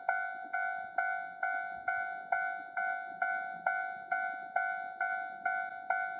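Japanese railway level-crossing warning bell ringing in steady, evenly repeated dings, about two a second, signalling that a train is approaching and the crossing is closed.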